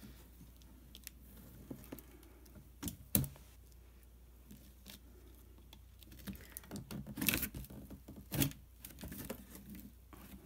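Hands working a corrugated cardboard box being cut apart with a utility knife: scattered taps, knocks and light scraping on the cardboard, with a sharp knock about three seconds in and a busier run of knocks and scraping around seven to nine seconds in.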